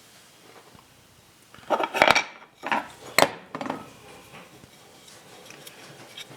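Small hard objects clattering and knocking as they are handled, in a short cluster of sharp clacks about two seconds in, the loudest two about a second apart, followed by faint rustling.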